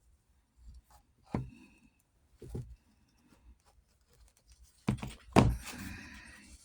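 A few sharp clicks and knocks of hand tools working metal on a saddle's blevins buckle, nippers and a steel block, with light handling noise between them; the loudest pair comes about five seconds in.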